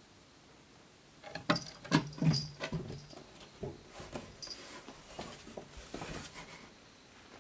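Footsteps and knocks on a wooden staircase: a few sharp, loud knocks about a second and a half in, then lighter, scattered taps and creaks that die away near the end.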